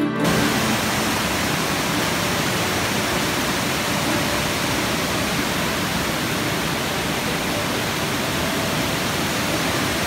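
Waterfall and white-water rapids rushing over rock ledges: a steady, even rush of falling water.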